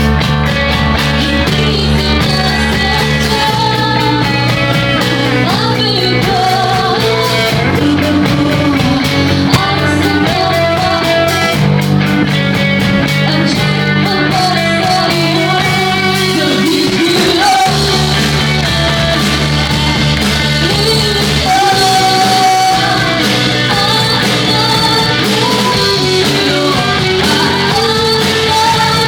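Rock band playing live: electric guitars, bass and drums with a female lead vocal singing over them.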